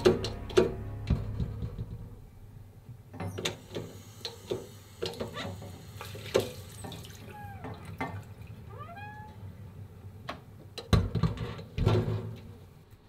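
A door latch clicks and knocks, then water runs in a sink with splashing as someone washes, broken by two short rising squeals. A couple of heavy thumps come near the end.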